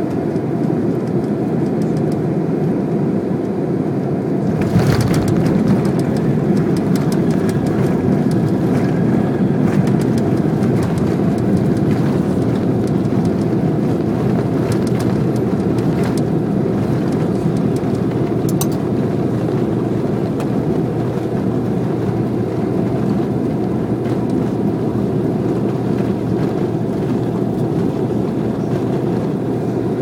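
Airliner cabin noise during landing: steady jet noise, then a sharp thump about five seconds in as the wheels touch down on the snowy runway. Louder rumbling with rattles and clicks follows through the landing roll, easing into a steady rumble.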